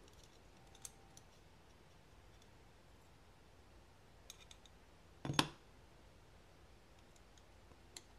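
Faint small clicks of a folding knife's handle scale being pressed and lined up onto its pins, with one sharper click a little past halfway. The parts are not seating easily.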